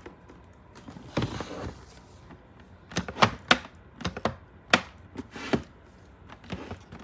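Koolatron 5 L mini fridge being handled: a run of sharp plastic clicks and knocks, several in quick succession, as its door is pushed shut and won't stay closed.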